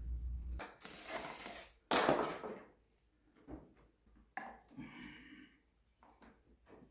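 Handling sounds as the motorcycle's carburettors are worked into place: a scraping rush about a second in, a louder clatter near two seconds, then scattered clicks and knocks.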